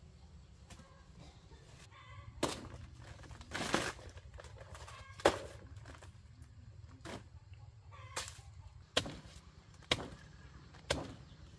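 A large knife hacking at a banana plant's stalk and leaves: about eight sharp chops at uneven intervals.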